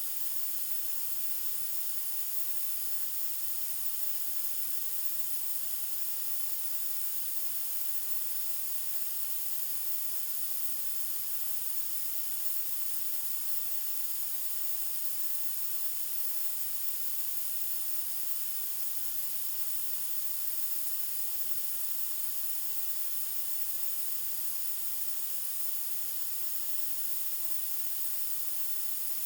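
Steady white noise: a continuous, even hiss that does not change, heaviest in the treble.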